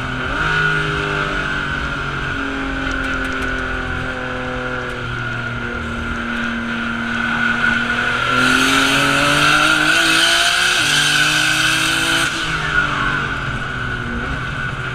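Race car engine running hard at high revs, heard from inside the cabin, its pitch holding and then stepping up and down, with the tyres squealing and scrubbing in a slide that is loudest from about 8 to 12 seconds in.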